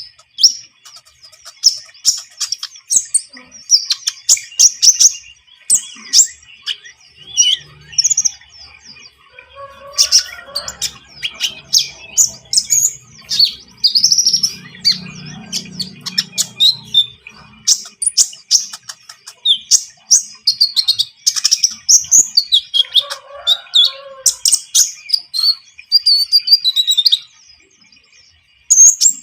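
Konin songbird singing: loud, rapid, high chirps and short trills in a near-continuous run, pausing briefly near the end.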